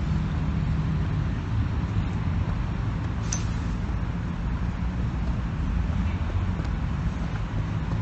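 Steady low outdoor rumble with a faint hum, like street ambience with traffic, and a brief high click about three seconds in.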